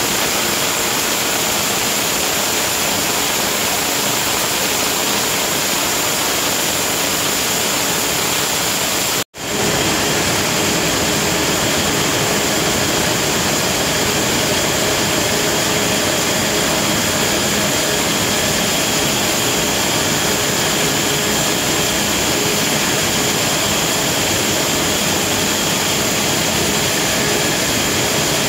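Steady, loud din of aluminium can production-line machinery: an even roar with a few steady hum tones. It cuts out for an instant about nine seconds in and comes straight back, with the hum tones clearer afterwards.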